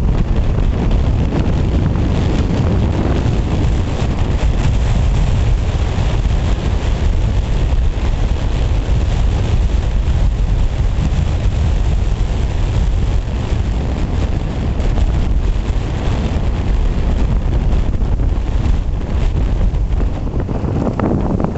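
Fierce gale-force wind buffeting the camera microphone in a winter snowstorm, a loud, steady rumbling roar with gusts.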